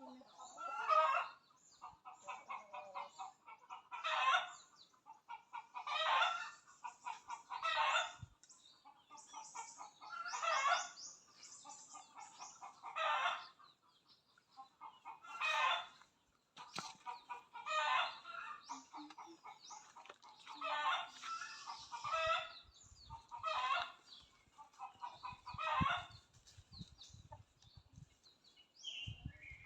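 Flock of Rhode Island Red and Black Australorp chickens calling, short loud calls repeated about every two seconds over quieter clucking. Some low thuds come in during the last several seconds.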